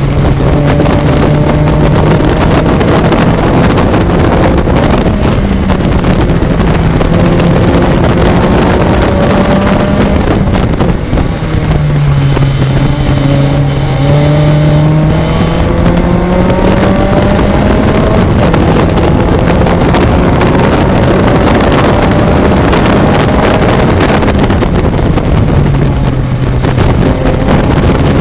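Onboard sound of a VITA race car's four-cylinder engine under racing load. Its pitch drops as the car slows for corners, lowest about twelve seconds in, and climbs again as it accelerates, over steady wind and road noise on the microphone.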